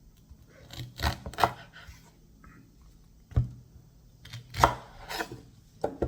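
Kitchen handling noises: about half a dozen separate knocks and clatters of a knife and plantains being handled on a work surface, with quiet in between and one sharper knock about three seconds in.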